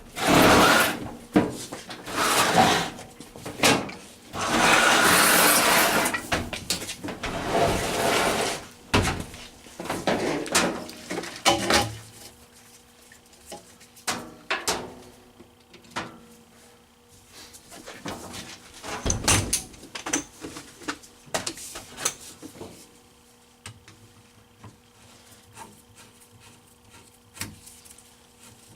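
Rough scraping and rubbing with knocks for about the first twelve seconds, then quieter scattered clicks and taps: hand work on a front-loading washer, reconnecting its hot and cold water hoses and moving it into its space.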